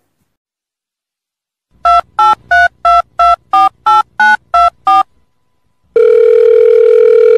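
Telephone keypad dialing tones: ten short two-tone beeps at about three a second. About six seconds in, a steady telephone line tone follows.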